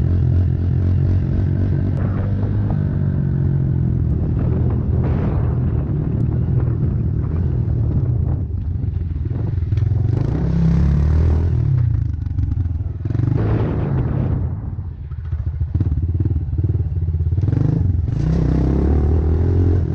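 Pit bike engine running as it is ridden along a dirt trail, the revs rising and falling with the throttle and easing off briefly about three quarters of the way through.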